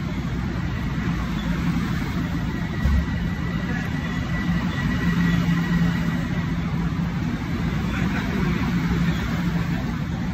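Steady rumble and low machine hum of a railway platform, such as a stopped train or station machinery running, with a brief low bump about three seconds in.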